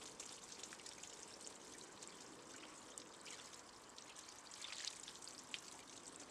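Faint, steady splash of water from a garden hose running at low pressure onto a car bonnet, with a few small ticks of drips.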